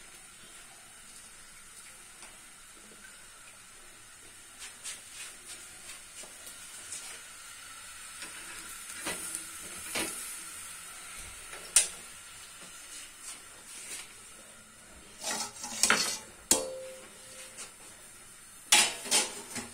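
Stainless steel kitchen bowls and utensils clinking and knocking, a few sharp clatters mostly in the second half, over a faint steady hiss.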